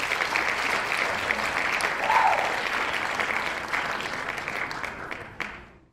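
Crowd applause, a dense patter of many hands clapping, with a brief louder call rising above it about two seconds in. It fades out near the end.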